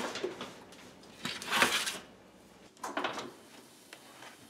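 Metal cookie sheet of chickpeas clattering and scraping as it is handled and slid into the oven, with oven-door noise. It comes as a few separate clatters: a knock at the start, the loudest scrape lasting most of a second about a second and a half in, and a shorter one about three seconds in.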